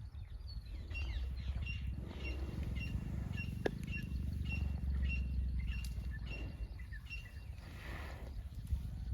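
A small bird repeating a short, high chirp about twice a second for several seconds, over a steady low rumble, with a brief rustling noise near the end.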